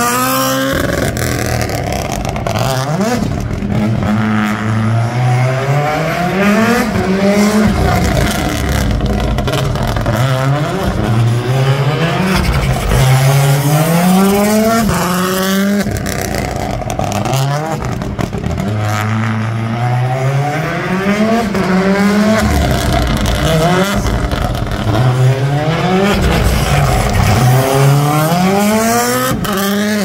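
Toyota GR Yaris Rally1 rally car's turbocharged 1.6-litre three-cylinder engine revving hard and dropping back over and over, each rev a rising whine about every one to two seconds, as the car spins donuts on asphalt with its tyres squealing.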